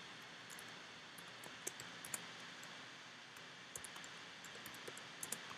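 Faint, irregular clicks of computer keyboard keys being typed, a few at first and more in the second half, over a steady low hiss.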